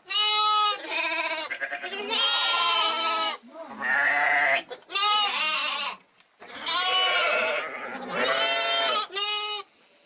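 Young sheep bleating over and over, about eight calls in a row, each call pitched and wavering, separated by short pauses.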